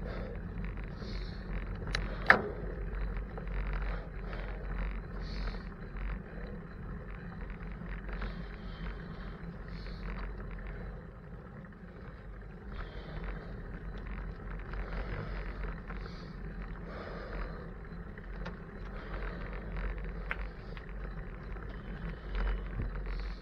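Bicycle riding noise: a steady low rumble of tyres on pavement and wind on the microphone, with small rattles throughout and one sharp clack about two seconds in.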